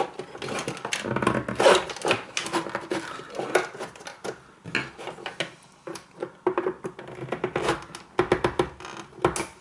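Irregular clicks, taps and scrapes of hands and a screwdriver working at the plastic casing, fittings and wiring of an electric shower being taken apart.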